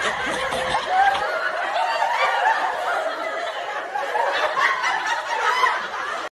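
Several people snickering and laughing, their voices overlapping.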